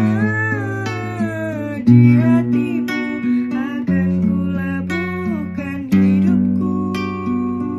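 Acoustic guitar strummed, a new chord struck about every two seconds, with a voice singing a melody over it.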